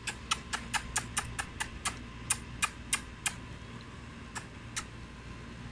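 Cats lapping milk from a shallow plastic tray: a run of quick, sharp wet clicks, about three to four a second, that thins out after about three seconds, with two last laps near the end.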